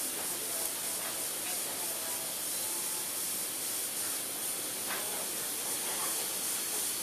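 Steady hiss with a faint, constant high-pitched whine above it.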